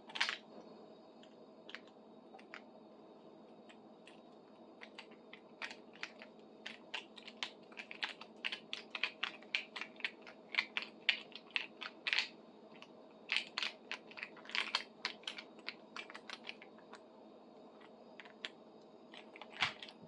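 Many quick, light clicks and taps in an irregular run, thickest in the middle, from small hard objects being handled and set down at a workbench, over a faint steady hum.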